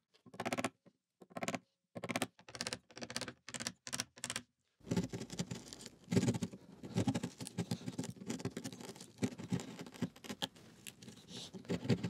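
Wood chisel paring out a shallow recess in the edge of a wooden door by hand. It starts as a string of short, separate scraping strokes, then goes quicker and nearly continuous from about five seconds in.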